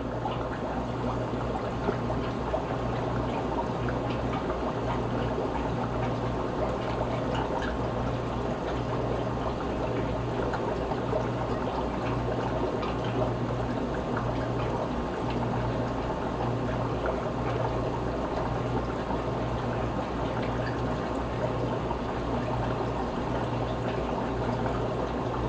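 Aquarium air bubbling steadily, a constant crackly gurgle of bubbles rising from an air-driven filter and breaking the water surface, with a low steady hum underneath, typical of the air pump.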